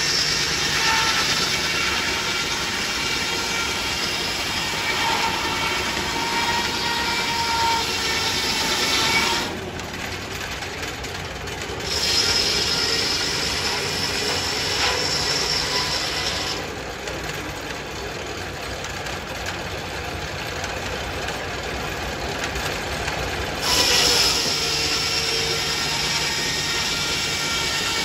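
Large circular sawmill blade sawing through a log on the carriage: a loud, continuous sawing noise with a high whine over it. It drops away twice to a quieter running of the mill for a few seconds at a time, and the cutting noise starts again sharply each time.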